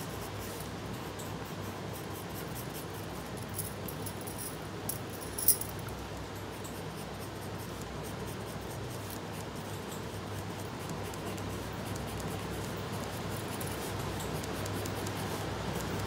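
Pencil scratching on paper in short strokes, over a steady hiss and low hum, with one sharp click about five and a half seconds in.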